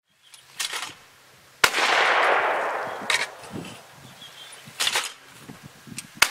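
Two shotgun shots about four and a half seconds apart, each followed by a long echo that dies away over a second or more. A few fainter short knocks come between them.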